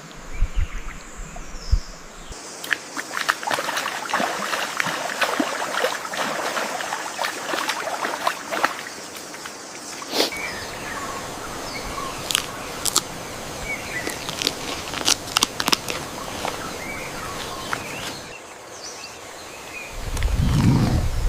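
Forest ambience with rustling and crunching, many sharp clicks and scattered short chirps, changing character several times as the shots change. A loud low rumble comes near the end.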